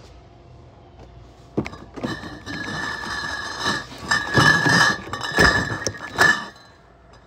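Cardboard cases of bottled beer being handled and stacked: a sharp knock about a second and a half in, then scraping and shuffling of cardboard with several heavy thuds as cases are set down, the glass bottles inside clinking.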